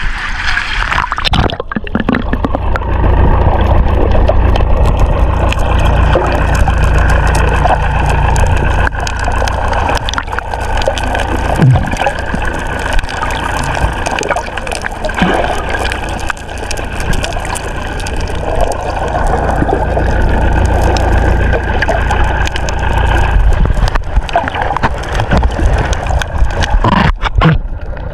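Small fishing boat at sea: water gurgling and sloshing against the hull over a steady low rumble, with scattered short knocks.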